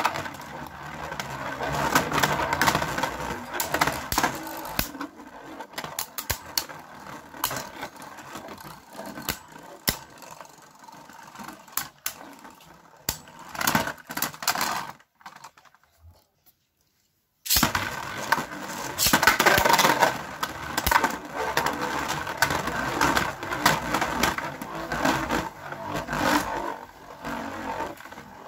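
Two Beyblade Burst spinning tops, Fafnir and Longinus, spinning and scraping across a plastic stadium floor, with many sharp clacks as they strike each other and the stadium walls. The sound drops out for about two seconds a little past the middle, then comes back just as busy.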